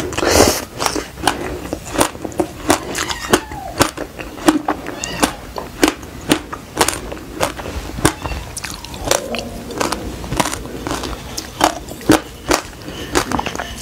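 Close-up chewing of fruit coated in black sesame seeds: an uneven run of sharp, crisp crunches, two or three a second, with a few short squeaky gliding sounds near the start and again about two-thirds through.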